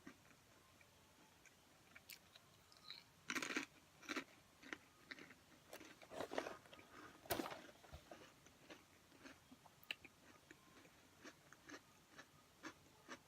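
Crunching and chewing of very thin, crispy pretzel crackers, heard as scattered soft crackles with a few louder crunches.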